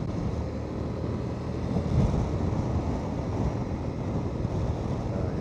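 Honda Transalp 750's parallel-twin engine running steadily at road speed, with wind noise on the microphone.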